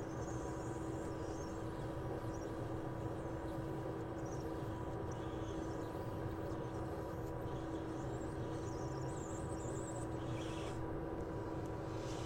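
Hot-air rework station blowing steadily: a constant rush of air with a low, even hum.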